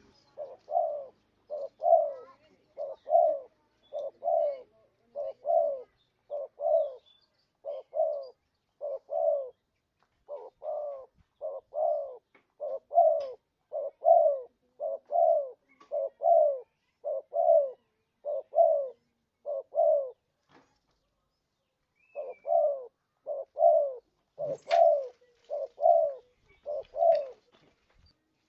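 Spotted dove (tekukur) cooing over and over as a bird-catcher's lure call, its low coos coming mostly in pairs at an even pace. The calls stop for about a second and a half roughly two-thirds of the way through, and a brief click sounds just after they resume.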